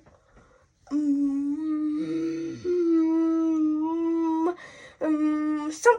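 A girl's voice holding a long, steady note, the pitch stepping up slightly partway through, then a second shorter held note near the end.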